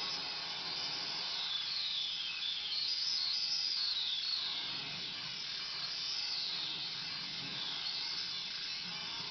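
Analog synthesizers (two Moog Mother-32s and a Novation Bass Station II) playing a hissing, noise-based patch. A resonant filter sweeps up and down in high whistling arcs several times as the Mother-32's knobs are turned.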